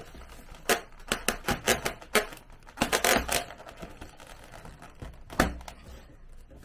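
Foam RC airplane wing being fitted onto the fuselage by hand: a run of light clicks and knocks with a patch of foam rubbing around three seconds in, and one sharper knock about five and a half seconds in.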